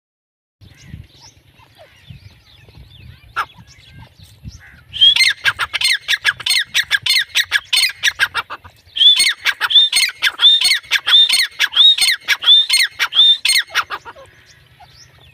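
Female grey francolin calling: two long runs of loud, sharp notes repeated rapidly, about four a second, the first starting about five seconds in and the second following after a brief break, ending about a second before the end.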